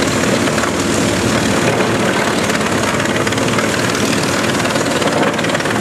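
Eschlböck Biber 70 wood chipper running steadily under load as it chips tree trunks fed in by its crane grapple, a dense, unbroken din of engine and chipping.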